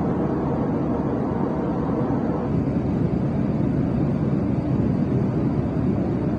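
Jet airliner cabin noise in flight: the engines and rushing air heard inside the cabin as a steady, low, even noise.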